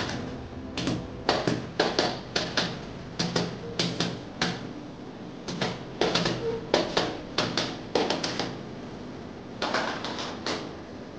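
Quick, irregular clusters of sharp metallic clicks and taps from pliers working against the aluminium bottom frame of a glass partition.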